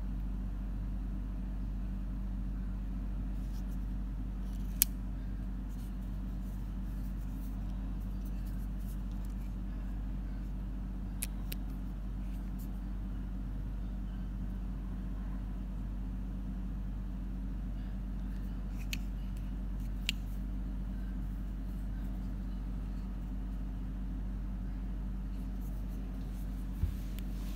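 Steady low background hum with a few sharp, isolated clicks, the loudest about five seconds in: a vintage Ronson lighter being handled and turned over.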